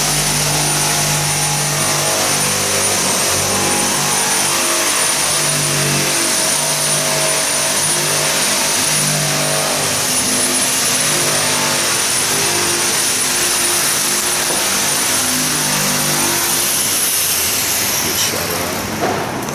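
A power cutting tool's motor running steadily with a high whine while the old windshield's urethane seal is cut out. Near the end the whine falls in pitch and the tool winds down and stops.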